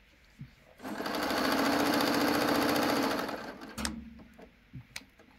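Sewing machine stitching in one run of about three seconds. It starts about a second in and winds down, and a few sharp clicks follow near the end.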